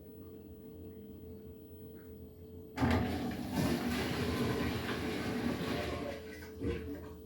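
10 kg washing machine distributing a load of two pillows before spinning: a steady low hum, then about three seconds in a sudden loud rush of water swirling in the drum that lasts about three seconds and fades, with a shorter surge near the end.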